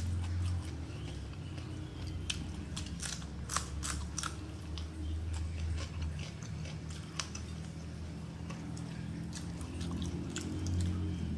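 Close-up mouth sounds of a person chewing a mouthful of rice and fish sambal, with a run of crisp crunchy bites about two to four seconds in and softer chewing after, over a steady low hum.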